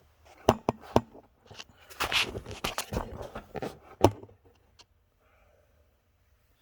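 Handling noises from an oxy-acetylene cutting torch being worked over during a soapy-water leak check: a few sharp knocks and clicks, with a stretch of scraping and rustling between them, the loudest knock about four seconds in.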